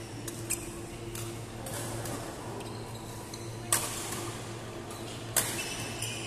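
Badminton racquets hitting a shuttlecock during a doubles rally: a light hit about half a second in, then two sharp cracks, one past the middle and one about a second before the end. A steady low hum runs underneath.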